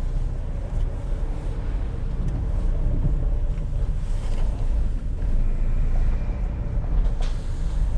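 A van driving, with a steady low engine and road rumble and a few light knocks and rattles from scrap metal loaded in the back.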